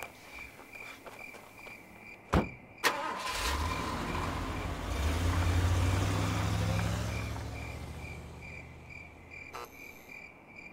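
A car door thumps shut, then a car engine starts and the car pulls away, its sound swelling and then fading out. Crickets chirp steadily throughout.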